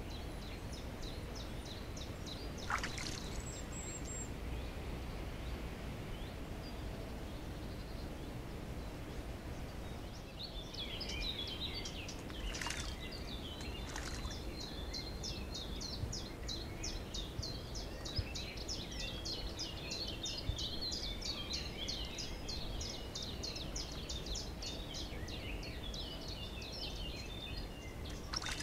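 Wild birds singing around a woodland pool: high, short notes repeated rapidly, about four a second, from about a third of the way in, with a few sharper single calls, over a steady low background hiss.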